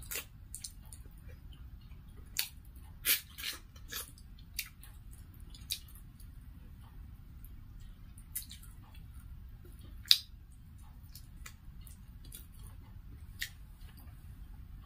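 Close-miked eating of chicken by hand: chewing and mouth smacks, with sharp wet clicks at irregular intervals, the loudest about ten seconds in.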